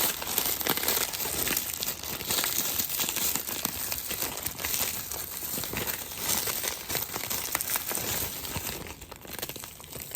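Graham crackers being crushed by hand inside a plastic Ziploc bag: the bag crinkling and the crackers crunching in a dense crackle, easing off near the end.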